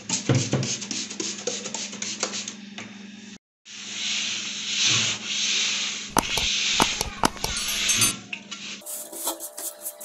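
Abrasive sanding sponge scrubbing rust off the face of an old iron pan, in repeated rasping strokes, cutting out briefly a few seconds in.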